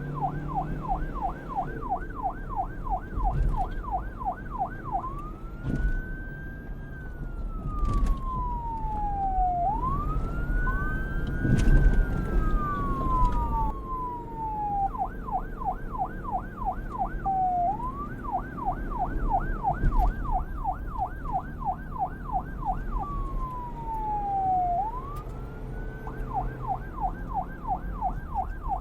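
Electronic police car siren switching between its fast yelp, about three to four sweeps a second, and a slow wail that rises and falls over a few seconds, then back to the yelp, over a low traffic rumble. Around the middle two wail sweeps overlap.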